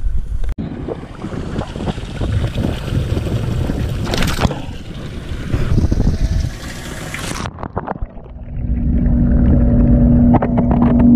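Water from a hose pouring and splashing into a bucket, a dense rushing noise. About eight seconds in it turns muffled, heard from under the water, with a steady low hum under the rush of the flow.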